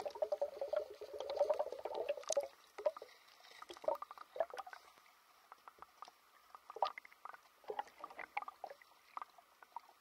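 Water splashing and bubbling at the surface, heard through a camera going underwater, for about two and a half seconds. After that come scattered bubble pops and small clicks underwater.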